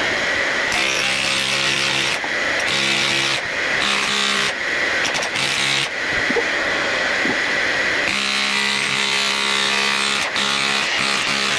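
Power tools cutting out a wall for a socket back box, running in repeated short bursts that start and stop, over the steady drone and high whine of a dust extractor.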